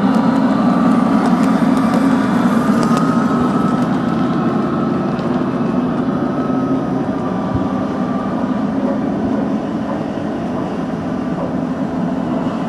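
Gauge 1 model train running on its track: a steady rumble of metal wheels on the rails and the locomotive's drive, with a faint wavering tone above it. It fades slowly as the train moves away.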